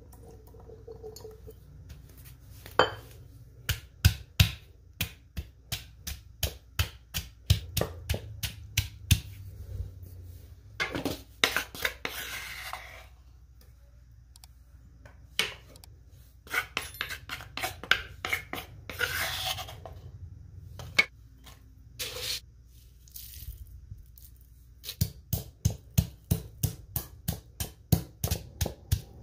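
Granite pestle pounding in a granite mortar: runs of sharp knocks, about two to three a second, with stretches of scraping in between.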